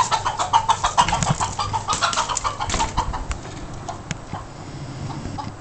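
Rooster squawking in panic while a cat chases it: a fast, loud run of short squawks and clucks for about three seconds, thinning to a few scattered clucks.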